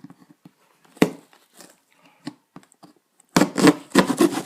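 Cardboard shipping box being opened: a sharp snap about a second in, then loud tearing and scraping of packing tape and cardboard from about three seconds in.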